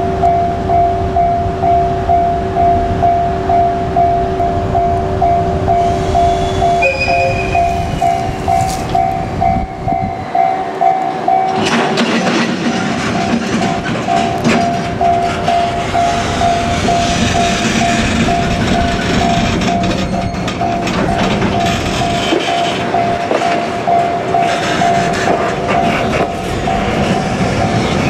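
Level-crossing alarm ringing in a steady, rapid repeating ding, with a JR Freight EF81 electric locomotive and its empty container flatcars rolling past. From about twelve seconds in the wheels grow louder, clattering and rumbling over the rails as the wagons go by.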